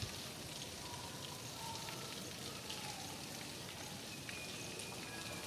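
Steady heavy rain falling, an even hiss of drops, with a few faint short tones above it.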